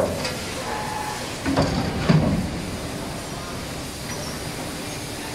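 CNC copper busbar punching and cutting machine running, its gripper carriage feeding a copper bar along the feed table, over steady machine noise. There is a brief louder burst of sound about a second and a half to two and a half seconds in.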